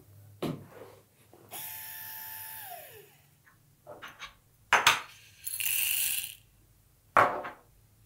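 Coffee beans and lids being handled at a small grinder: a click, a scraping slide with a falling squeak, sharp knocks, and a brief rattle as espresso beans are poured into the hopper of the Option-O Lagom Mini.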